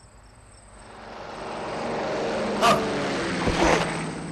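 A road vehicle rushing past: its engine noise swells over a couple of seconds, peaks, and then fades away.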